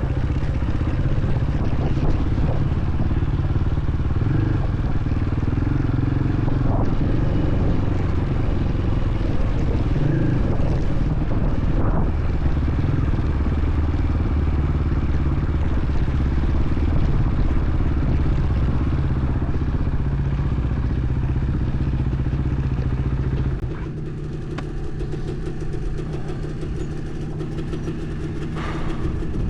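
Off-road trail motorcycle engine running steadily under way. About 24 seconds in it drops to a quieter, lower level, as if the rider eases off.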